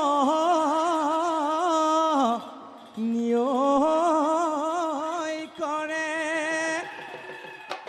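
Music: a voice singing two long phrases of drawn-out, wavering held notes, with a short break about two and a half seconds in.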